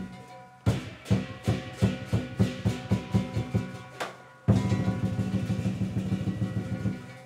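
Chinese lion dance drum and cymbals playing a steady beat of about three strikes a second, then breaking into a fast continuous drum roll about halfway through that fades near the end.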